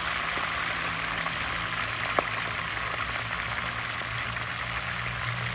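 Halved Caribbean spiny lobsters deep-frying in a pot of vegetable oil: a steady sizzling hiss with a single sharp pop about two seconds in, and a low steady hum underneath.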